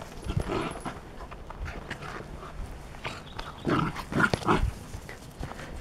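A puppy giving short yelps, with three in quick succession about four seconds in.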